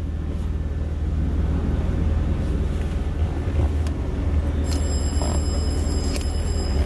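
Steady low rumble of an idling vehicle engine, heard from inside the cab. A few faint, steady high-pitched tones come in about two-thirds of the way through and stop just before the end.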